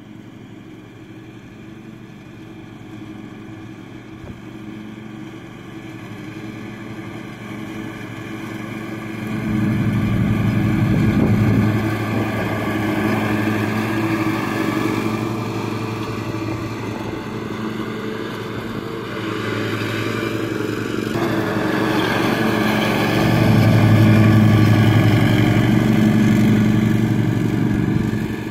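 Ariens zero-turn riding mower's engine running steadily as it cuts grass, growing louder as it draws near, loudest about ten seconds in and again late on, then dropping off just at the end.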